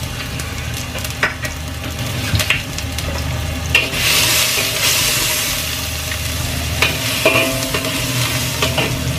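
Ginger frying in oil in a wok, sizzling, while a spatula stirs and scrapes against the wok several times. The sizzle grows louder about four seconds in, over a steady low hum.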